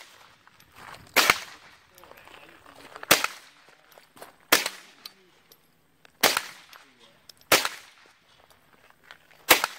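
GSG-522 .22 LR semi-automatic rifle fired six single shots, sharp cracks about one every one and a half to two seconds. Each round goes off in turn, the sign that the rifle's light primer strikes are cured.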